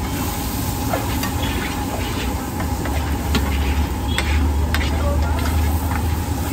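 Metal ladle stirring and scraping chole (chickpea curry) in a hot pan, with a constant sizzle and scattered sharp clicks of metal on metal. A low steady rumble runs underneath and grows stronger about three seconds in.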